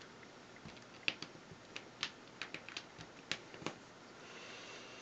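Small plastic LEGO pieces clicking as they are handled and pressed into place on a mosaic: a dozen or so sharp, irregular clicks, then a pause.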